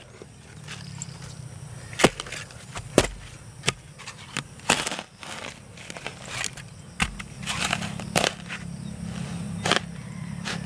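A hand digging tool striking and scraping into damp soil, a string of sharp thuds at irregular intervals, over a low steady hum that grows a little louder about two-thirds of the way through.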